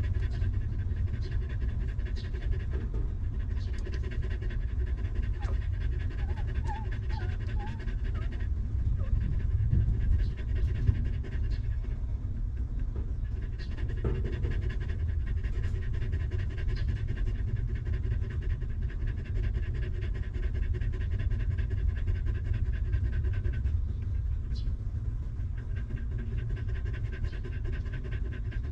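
Nursing mother dog panting steadily over a continuous low rumble, with a few faint high squeaks from the newborn puppies about seven seconds in.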